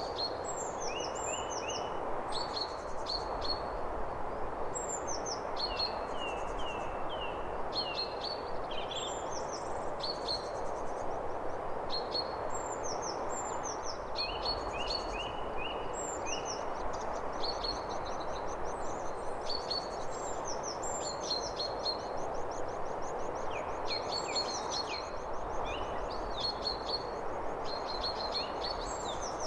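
Several songbirds chirping and trilling in short repeated notes throughout, over a steady rushing background noise.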